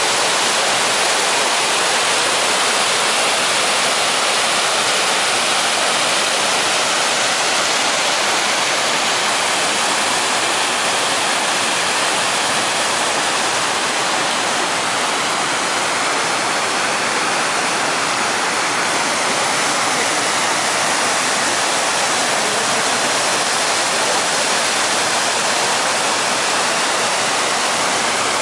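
Canal water flowing, a loud, even, unbroken rush.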